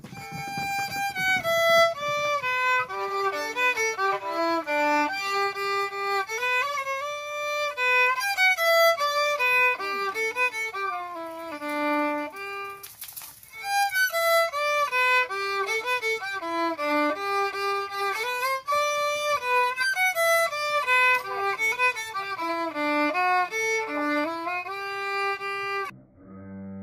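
Solo violin playing a melody of single bowed notes, with a short break about halfway through; the playing stops just before the end.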